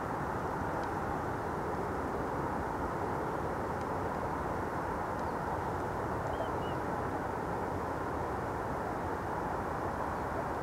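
Steady rushing roar of wingbeats from an enormous flock of Baikal teal flying overhead.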